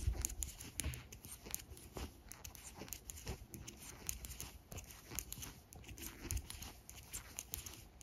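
Knitting needles working a run of purl stitches: faint, irregular clicks and rubbing of the needles and yarn.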